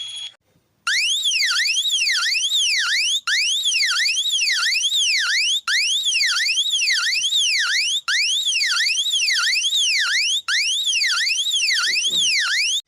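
Electronic emergency-alert siren tone, wailing up and down about twice a second. It starts about a second in and comes in stretches of roughly two and a half seconds, each separated by a very brief break. It cuts off suddenly near the end.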